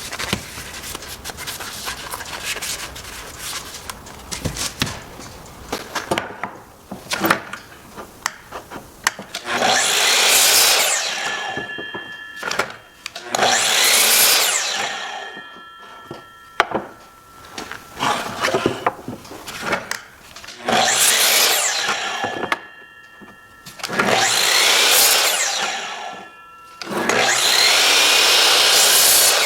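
Wood being rubbed or sanded by hand with small knocks, then a power tool cutting into wood in five bursts of two to three seconds each, its motor whining steadily between the cuts.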